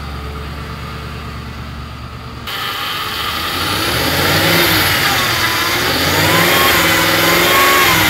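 Car engine running with a steady low hum, then from about two and a half seconds in a power steering pump whining, its pitch rising and falling as the steering wheel is turned and growing louder. The pump is pulling in air because the fluid is very low and aerated.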